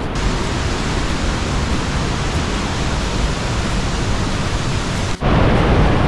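Steady rush of a fast, swollen mountain river and waterfall, an even hiss-like roar of water with no break in it. It drops out for an instant about five seconds in, then comes back a little louder.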